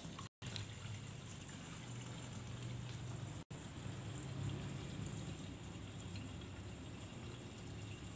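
Liquid poured from a tipped plastic bucket into a green plastic container, a faint, steady trickle broken by two very short silent gaps.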